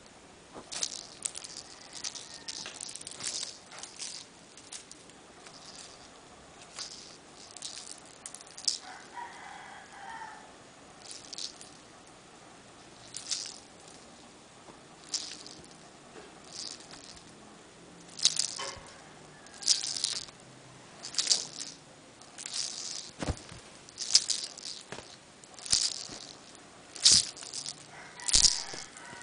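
A cat toy being shaken and swished over a kitten, making short rattling swishes that come irregularly at first and then about once a second, louder in the second half. Two sharper knocks are heard in the last several seconds.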